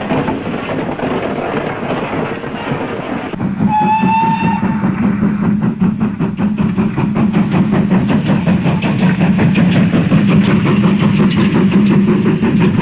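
GWR King class four-cylinder 4-6-0 steam locomotive No. 6000 King George V running under steam, with a steady low rumble and a fast, even beat that grows louder about three seconds in. A short whistle blast sounds about four seconds in.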